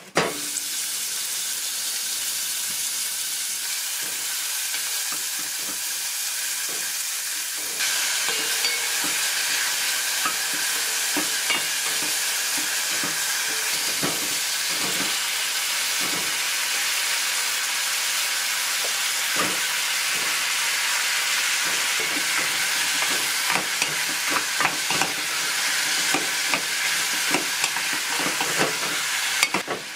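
Food sizzling as it fries in a pan, with repeated clicks and scrapes of a utensil stirring it. The sizzle steps up louder about eight seconds in.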